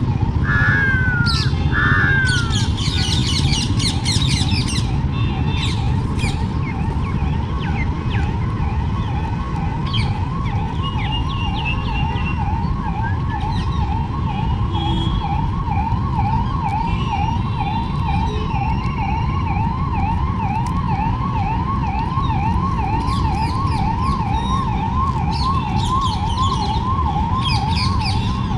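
Squirrel calling: a short rising chirp repeated about twice a second without a break, with scattered higher bird-like chirps and a steady low rumble underneath.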